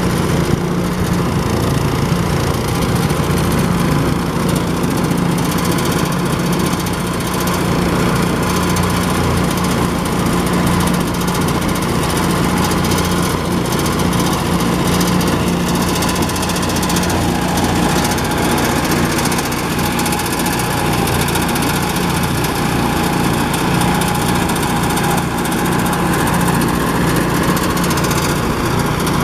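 Engine-driven power rice thresher running steadily while rice stalks are fed into its spinning threshing drum: a continuous engine drone with a steady rush of noise over it.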